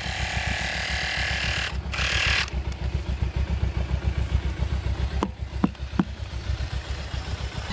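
Portable electric tyre inflator running with a fast, steady rattle, pumping up a punctured motorcycle rear tyre after a repair. A short burst of hiss comes about two seconds in, and a few sharp clicks near the end.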